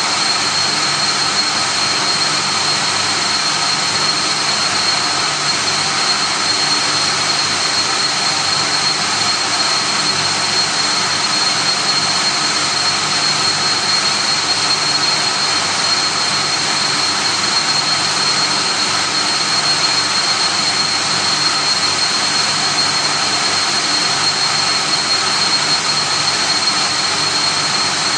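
Chiller plant-room machinery running: a loud, steady whirring noise with a constant high-pitched whine over it.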